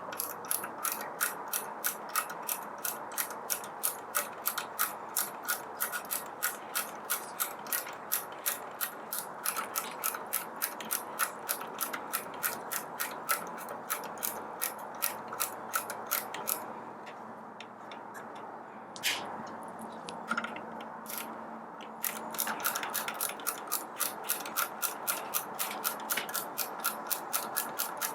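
Ratcheting screwdriver clicking in a fast even run, about four clicks a second, as front bracket screws are backed out; the clicking breaks off for a few seconds in the middle, with a few single clicks, then starts again.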